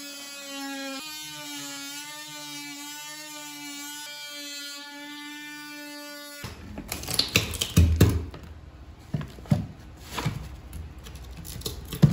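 A small power tool's motor whining at a steady pitch, dropping slightly about a second in, then stopping abruptly after about six and a half seconds. It is followed by a run of irregular knocks and clatter.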